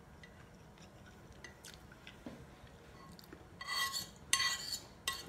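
Metal spoon scraping and clinking against a ceramic bowl while scooping rice. There are a few ringing clinks in the last second and a half, and before that only faint small clicks.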